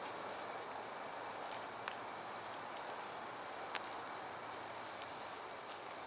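Short, very high chirps from a small outdoor animal, repeated unevenly two or three times a second over a steady background hiss.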